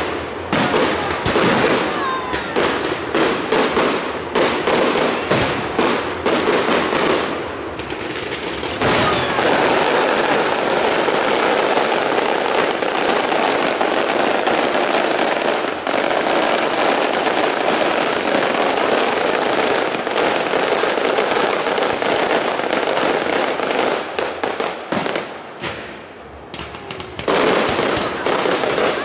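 Aerial fireworks bursting: a quick string of sharp bangs for the first several seconds, then a dense, unbroken crackle of many small reports from about nine seconds in. It eases briefly near the end before separate bangs start again.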